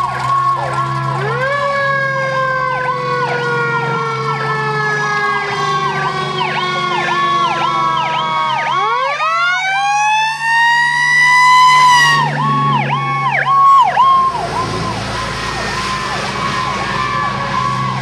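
Fire truck sirens as the apparatus passes: a fast electronic yelp layered with a slow siren wail that winds down, climbs steeply again about nine seconds in and breaks off near twelve seconds, over the rumble of the truck's engine. Near the end the sirens fade into the hiss of tyres on the wet road.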